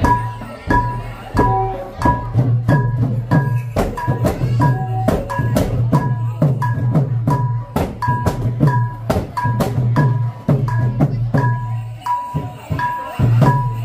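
Khmer chhay-yam ensemble music: drums and struck metal percussion playing a fast, steady rhythm, with a bright ringing note repeating about twice a second over a continuous low hum.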